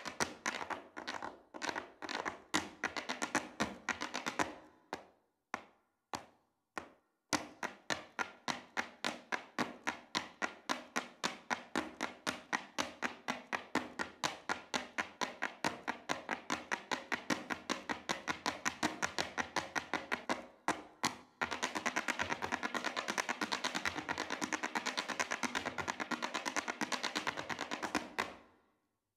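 Irish dance hard shoes striking a wooden stage in unison, beating out a steady rhythm. A few single strikes with short pauses come early, a brief break follows about two-thirds of the way through, then the strikes get denser and stop abruptly near the end.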